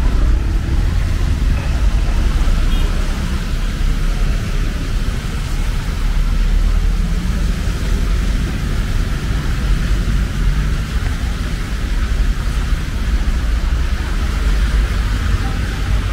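Steady city street noise of traffic, with a heavy low rumble throughout.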